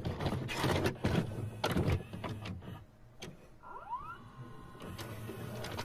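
VCR tape-deck mechanism: a series of clicks and clunks, then a short rising motor whine about four seconds in as the deck goes from stop to play.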